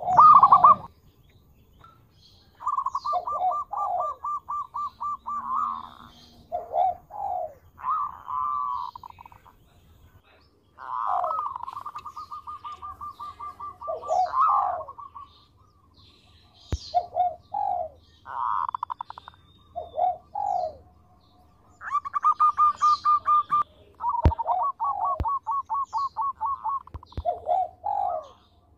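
Zebra dove (perkutut) cooing: phrase after phrase of a fast run of short staccato notes mixed with lower, falling coos, with short pauses between phrases. The loudest note comes right at the start, and a few faint sharp clicks fall in the second half.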